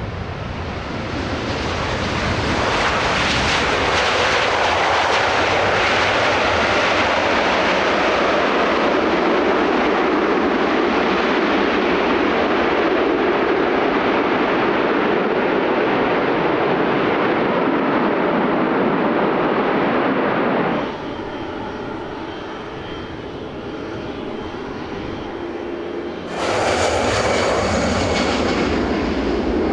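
Jet airliner engines running loud, building over the first few seconds and then holding steady. About twenty seconds in the sound cuts suddenly to a quieter engine noise. Some five seconds later it jumps back to loud engine noise with a high whine on top.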